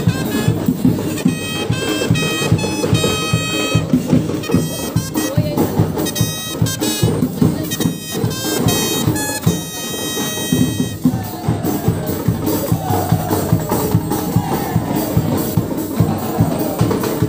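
Marching band playing: a brass melody in short, separate notes over steady drumming. About eleven seconds in the horns stop and the drums carry on.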